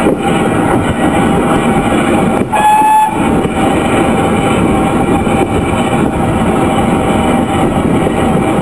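Small steam locomotive running along the track with a steady rumble, giving one short whistle blast about two and a half seconds in.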